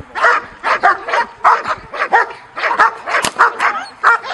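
Young German Shepherd barking in a rapid, unbroken string, about three to four barks a second. This is the dog's drive barking in protection-work (Schutzdienst) training.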